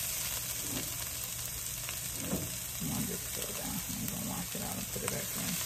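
Shredded trumpet mushrooms and chopped bell peppers sizzling steadily in oil in a frying pan.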